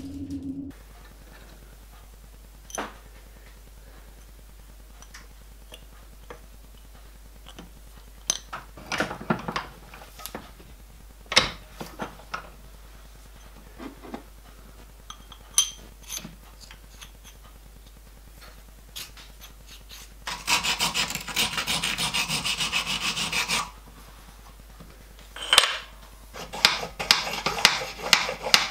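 Steel parts handled at a bench vice: scattered clicks and knocks of a steel shaft, a steady rasping scrape lasting about three seconds, then a quick run of metallic clinks as a spur gear is worked along the keyed shaft near the end.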